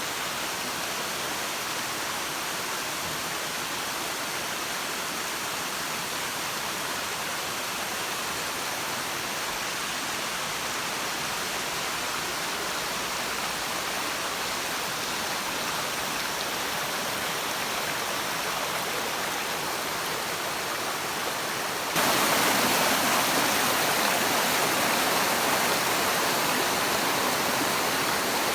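Steady rush of fast-running water, swollen after heavy rain, which jumps suddenly louder about three-quarters of the way through.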